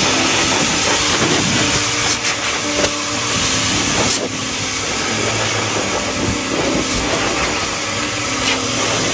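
Pet blow dryer blowing a steady, loud rush of air through its hose and brush nozzle, with the motor humming underneath, as it dries a wet dog's coat after a bath.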